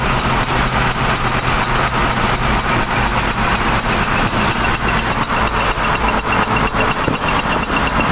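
Electronic dance music with a steady beat and fast, evenly spaced hi-hat ticks over a deep bass.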